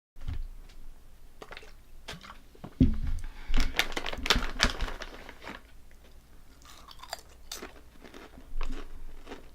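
Close-miked crunching and chewing of honey butter potato chips, a run of crisp crackles that is loudest a few seconds in.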